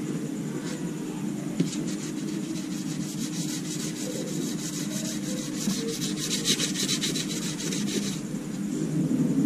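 A hand sanding pad rubbed rapidly back and forth over a plastic panel, a run of quick scraping strokes starting a couple of seconds in and stopping about a second before the end, loudest in the middle, over a steady low hum.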